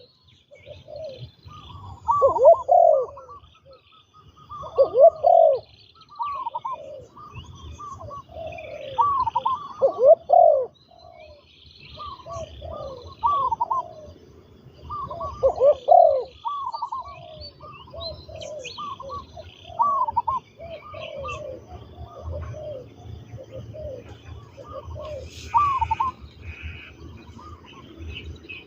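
Spotted dove cooing: repeated phrases of coos, one after another every second or two, some overlapping. Faint chirps from smaller birds sound higher up.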